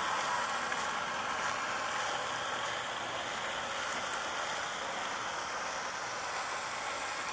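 Steady background hiss with no distinct event.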